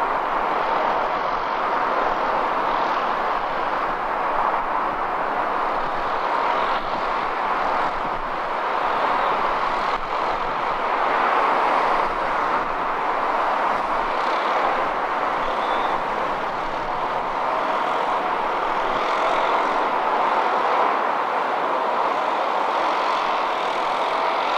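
Steady outdoor city ambience of road traffic going by, an even rushing noise with no single sound standing out.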